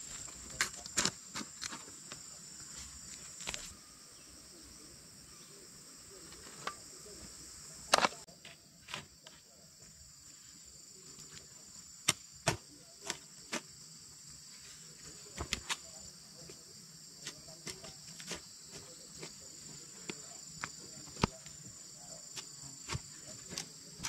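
A hoe chopping into dry, clod-filled soil in sharp strikes at irregular intervals, over a steady high buzz of insects.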